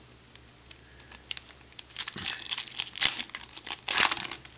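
Foil wrapper of a 2012 Bowman baseball card pack crinkling and tearing open by hand. A few light clicks come first, then dense crackling from about two seconds in, loudest near the end.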